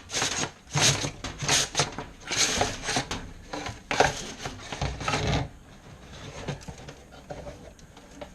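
Dryer vent cleaning brush scrubbing inside a dryer duct tube, a quick series of rasping strokes about twice a second that stop about five and a half seconds in, leaving only faint rustles.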